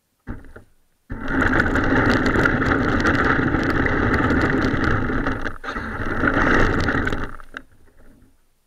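A Nikko radio-controlled toy car drives, its electric motor and gearing running while the wheels rumble over rough pebbled concrete, heard from a camera mounted on the car. A short burst comes about a third of a second in. Continuous running starts about a second in and fades out near the end.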